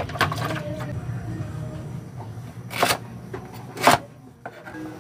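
Kitchen knife chopping okra on a cutting board: three separate knocks of the blade striking the board, at the start, near three seconds in and about a second later, over a steady low hum.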